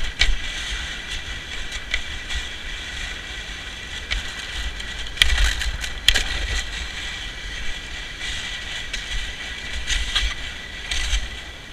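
Sled sliding fast over an icy road surface: a steady scraping rush with occasional sharp knocks and rattles, about five and six seconds in and again near the end, and wind rumbling on the microphone.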